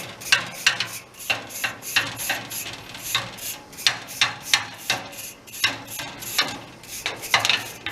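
Quick, rough scrubbing strokes on the outdoor condenser unit of a Hoshizaki commercial refrigerator as it is cleaned, about three strokes a second in an uneven rhythm.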